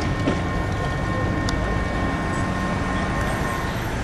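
Premetro light-rail tram moving off along the track, with a steady high-pitched whine that stops shortly before the end, over a constant rumble of street traffic; a car passes close near the end.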